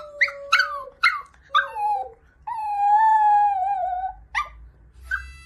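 A dog howling: a few short yips that fall in pitch, then one long wavering howl about halfway through, then two more short yips near the end.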